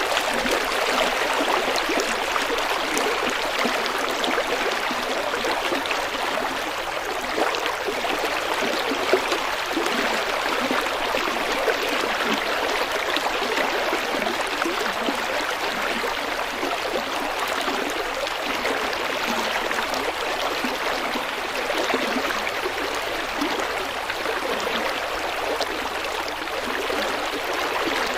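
River water flowing and splashing over stones, a steady rushing with a bubbling texture.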